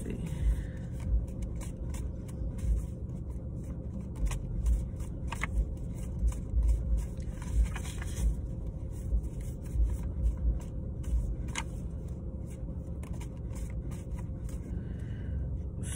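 A deck of oracle cards being shuffled by hand: a run of soft, irregular card flicks and slides, over a low steady rumble with occasional low thumps.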